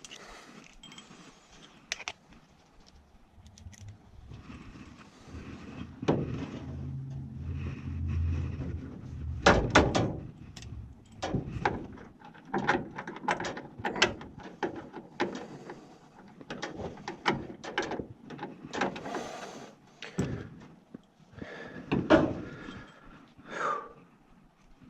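Irregular clicks and knocks of tools and parts being handled, with a low hum for a few seconds about six seconds in.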